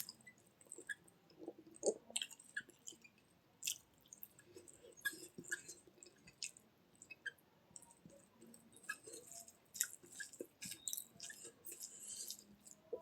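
A person chewing food close to the microphone: many small, irregular mouth clicks and smacks.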